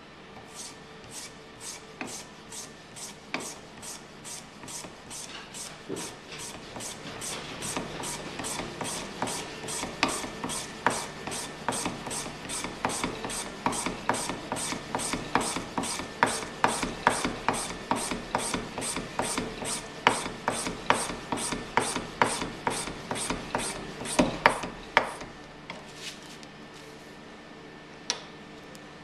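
Bagpipe reed gouging machine shaving a strip of cane: the blade carriage is pushed back and forth in quick scraping strokes, about two or three a second, growing louder as the cut goes on and stopping near the end.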